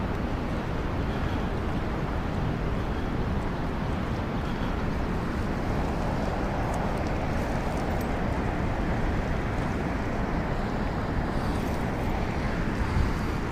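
Steady rushing noise of the current below a dam, mixed with wind on the microphone.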